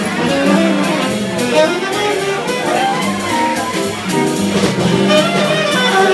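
Live small-group jazz: a saxophone playing a moving melodic line over guitar and double bass.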